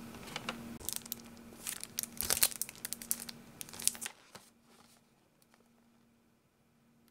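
Plastic packaging crinkling and rustling in quick crackles for about three seconds, stopping about four seconds in, over a faint steady low hum.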